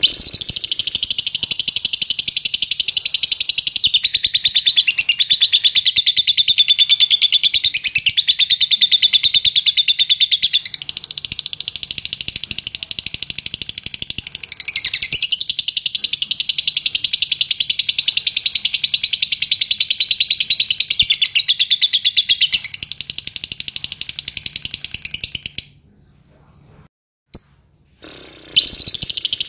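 A caged Fischer's lovebird chirping in one long, very rapid, unbroken trill for about twenty-five seconds. This is the long continuous chirping ('latah') prized in contest lovebirds. It stops for a few seconds, then starts again near the end.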